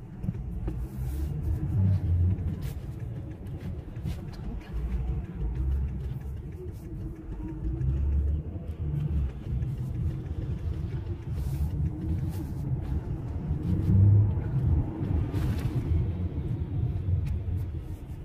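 Low, uneven rumble of a car's engine and road noise heard from inside the cabin while riding in slow city traffic.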